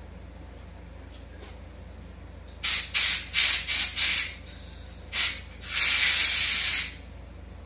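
Compressed-air blow gun blowing out a carburetor part: about five short blasts in quick succession, then one more short blast and a longer one of about a second.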